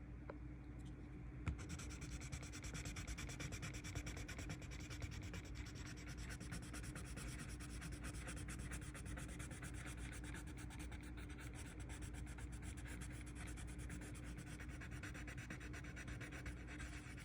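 Colored pencil shading on paper in rapid back-and-forth strokes, a steady scratchy rubbing that starts with a light tap of the pencil about a second and a half in.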